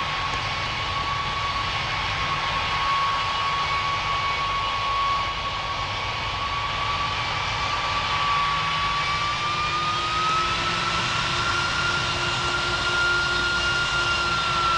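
Jet aircraft engine running with a steady roar and a high whine, the whine rising slightly in pitch about two-thirds of the way through.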